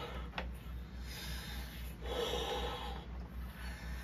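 A woman blowing up a large latex balloon by mouth: noisy breaths pushed into the balloon, with in-breaths between them.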